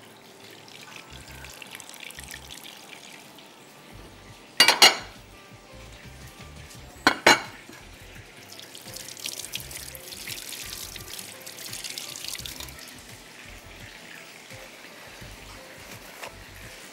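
Minced-meat chapli kabab patties shallow-frying in very hot oil in a nonstick pan: a steady sizzle that grows brighter and hissier after about eight seconds. Two short, sharp, loud noises come about five and seven seconds in.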